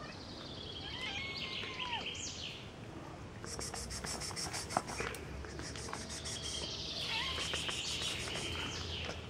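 A songbird singing two descending trilled phrases, one near the start and one near the end, with quick high chirping in between. A single sharp click comes about halfway through.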